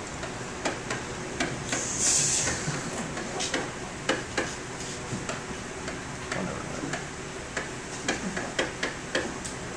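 Irregular taps and clicks of a stylus writing on an interactive whiteboard, with a brief scratchy hiss about two seconds in.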